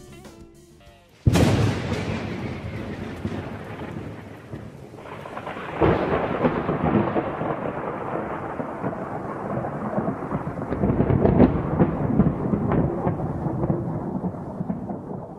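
Thunder and rain: a sudden thunderclap about a second in that rolls away, then a second clap near six seconds with crackling rumble that swells again before fading out near the end.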